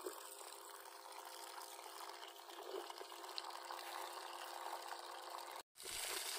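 Water gushing steadily from a newly installed borewell pump's discharge pipe. The sound drops out for a moment near the end, then resumes.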